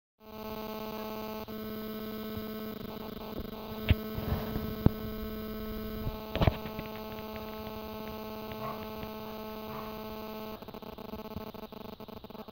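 Steady electrical hum made of several stacked tones. Over it come a few sharp clicks about four and five seconds in, and short rough bursts around four and six and a half seconds in.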